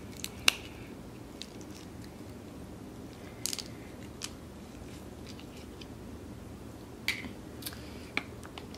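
Boiled crab shell being snapped and cracked open by hand: scattered sharp cracks and clicks, the loudest about half a second in, others a few seconds apart.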